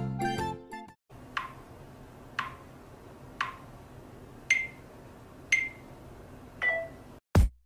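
Smartphone camera self-timer counting down: six short ticks about a second apart, the last three sharper with a higher ring. Music fades out in the first second, and a drum-machine beat starts just before the end.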